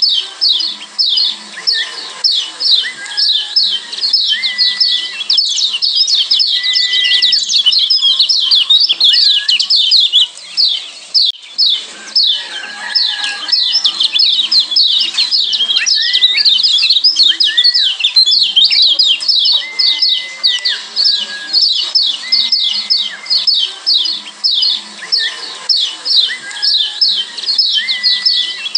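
Lombok yellow white-eyes (kecial kuning, a Zosterops white-eye) calling in a rapid string of sharp, high downward chirps, the 'ciak' call. The string is broken by short, level whistled notes every second or two.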